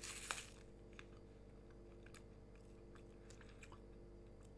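A bite into a crunchy sugar-coated corn snack in the first half second, then faint, scattered crunches of chewing with the mouth closed.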